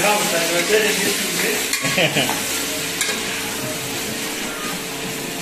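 Raw chicken pieces with spices sizzling in an aluminium pot and being stirred with a metal spoon, with a steady frying hiss throughout and a few scrapes of the spoon against the pot in the first couple of seconds.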